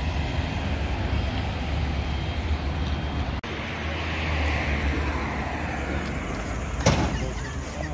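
Street traffic with a vehicle engine running as a steady low hum, and a single sharp bang near the end.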